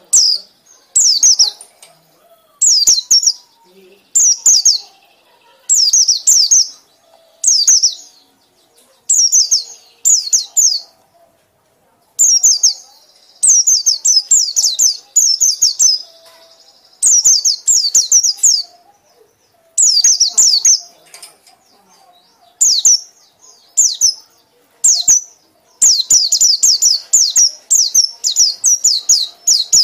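White-eye (pleci) chattering song in the ngekek style. Each burst is a run of rapid, high, falling notes, and the bursts repeat about once a second with short gaps. Longer unbroken runs come in the middle and near the end.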